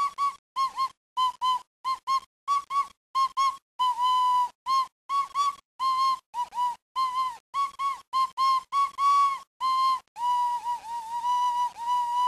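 A high, pure whistle-like tone played as a long run of short notes on nearly one pitch, each note bending slightly, closing on a longer held note with a slight waver.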